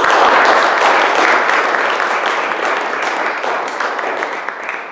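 Audience applauding: many hands clapping at once, loud at first and dying away near the end.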